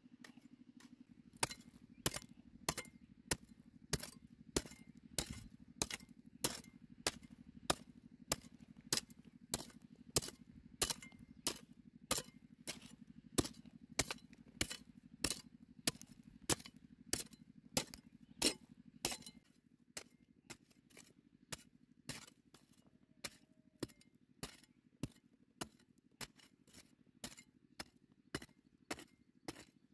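Repeated sharp chopping strikes of a hand tool, about two a second in a steady rhythm, growing quieter about two-thirds of the way through as a low background hum drops away.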